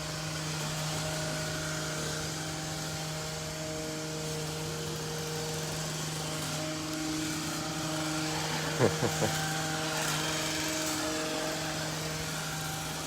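A motor running steadily with a constant low hum, with three brief sharp knocks about nine seconds in.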